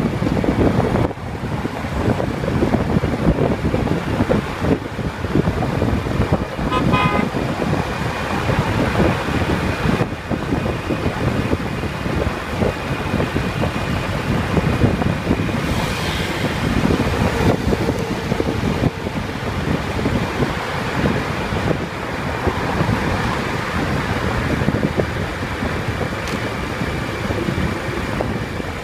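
Steady wind and road noise from travelling at speed along a highway. About seven seconds in, a vehicle horn gives a quick series of short beeps.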